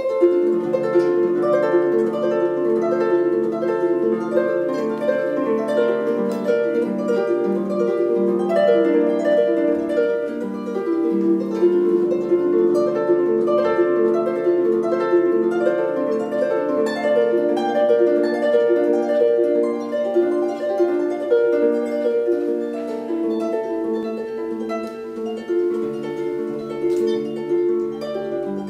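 Lever harp played solo: a fast, unbroken stream of plucked notes in rippling arpeggio figures. It sets in abruptly at full level.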